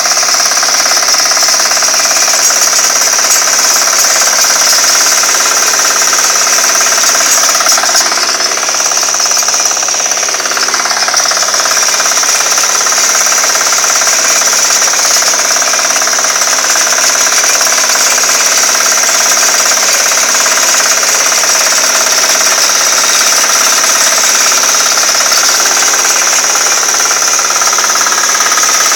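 Small single-cylinder engine of a walk-behind hand tractor running steadily under load, its rotary tiller churning through soil and crop stubble. The engine makes a rapid, even knocking.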